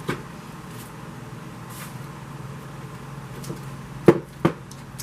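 Craft supplies being handled on a work table: a soft tap at the start, then two sharp knocks about four seconds in, half a second apart, over a steady low hum.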